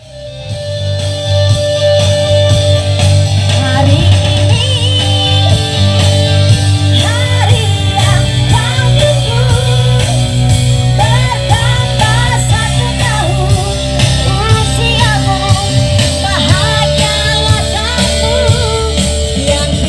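Music fading in, with a heavy steady bass and a singing voice that comes in about four seconds in.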